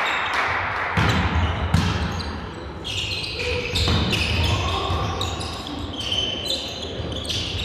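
A volleyball being struck and bounced on an indoor court: a run of sharp knocks, with short high-pitched squeaks in between.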